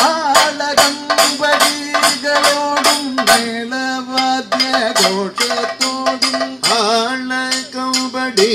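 Kathakali music: a male singer holding long, wavering melismatic notes, over sharp strokes of a chenda drum and jangling metallic percussion.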